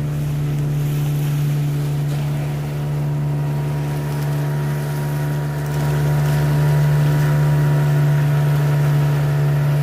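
A jukung's engine running steadily while the boat is under way: a constant low hum with steady tones above it, growing a little louder about six seconds in.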